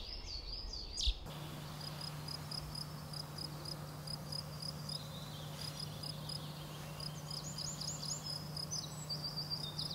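Natural field ambience. A short, high chirp repeats evenly about three times a second over a steady low hum, and quick swooping bird notes come in near the end.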